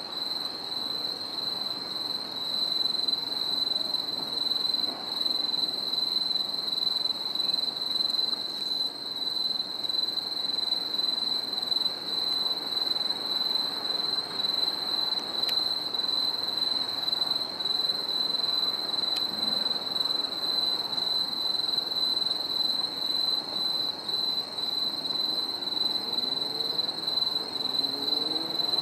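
Steady high-pitched chirring of crickets over a dull, even background noise. Near the end, an engine starts rising in pitch.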